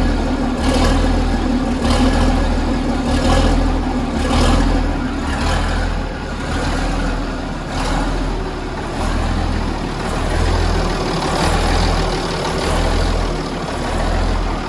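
Scania-Vabis L56 truck's diesel engine running cold soon after a cold start, heard from its exhaust, the sound swelling and easing about once a second.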